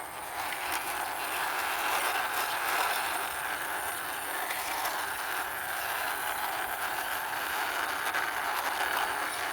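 Plastic toy car pushed along by hand, its wheels rolling over the surface with a steady rushing, rasping noise.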